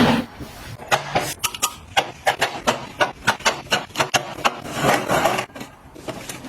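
Quick, irregular taps and clicks of household items being handled and set down, with a short rustle about five seconds in.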